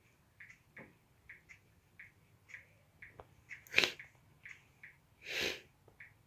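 Soft rustling of a hand rubbing a cat's head and fur, with two breathy puffs: a sharp one near four seconds and a longer one about a second and a half later.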